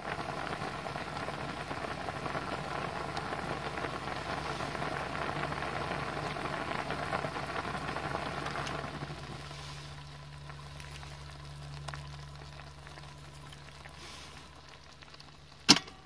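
Pot of instant ramyeon noodles at a rolling boil, a loud bubbling hiss that eases off after about nine seconds over a low steady hum. A single sharp click near the end.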